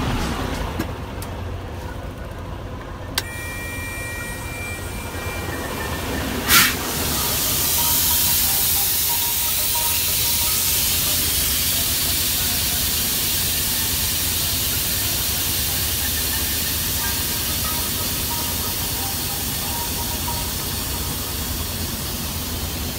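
Semi-tractor's air-ride suspension being dumped: a sharp click about six and a half seconds in, then a loud steady hiss of air rushing out of the airbags that slowly eases, over the low running of the truck's idling engine.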